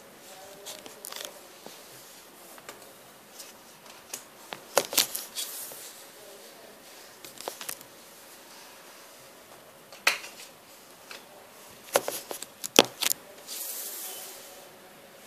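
Trading cards being handled and set down on a wooden table: scattered sharp clicks and taps, a cluster about five seconds in and a few more near the end, with light rustling between them.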